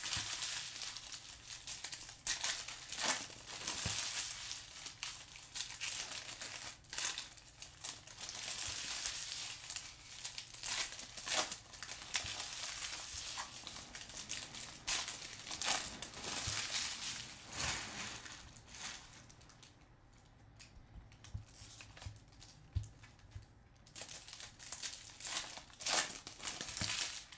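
Foil wrappers of Bowman baseball card packs being torn open and crinkled by hand, with sharp rips throughout and a quieter few seconds about three-quarters of the way in.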